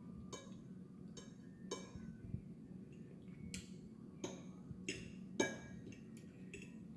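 Eating utensil clinking lightly against a dish about seven times, each a short sharp click with a brief ring, over a faint steady low hum.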